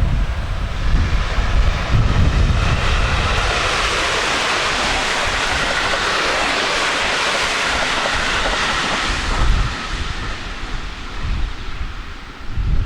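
A train passing on the Tokaido Main Line: a smooth rush that builds, holds for several seconds and fades away, with wind buffeting the microphone at the start and end.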